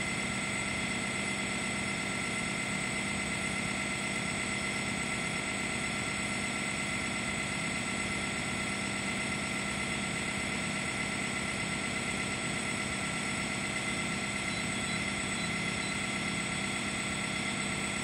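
Steady machinery hum, with several constant high tones over a low drone that does not change.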